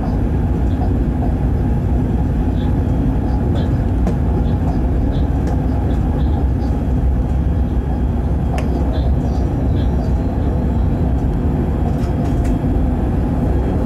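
Freight train running at speed, heard from the locomotive cab: a steady, heavy low rumble of wheels on rail. Faint short high chirps are scattered through it, and there is one sharp click about eight and a half seconds in.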